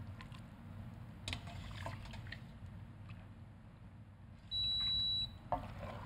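A steady high electronic beep lasting just under a second, about four and a half seconds in, louder than anything else. Before it come faint taps of a wire strainer as cooked bow-tie pasta is dropped into a stainless sauté pan.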